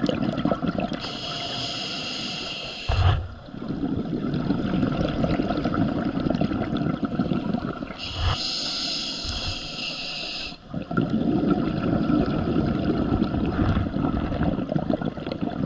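Scuba diver breathing through a regulator underwater. Two long hissing inhalations, each about two seconds, end in a short thud, and longer stretches of exhaled bubbles churn between them.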